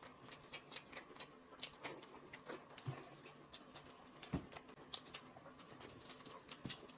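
Faint chewing and mouth smacks of people eating buns (baozi) with chopsticks: scattered small wet clicks, one a little louder about four seconds in.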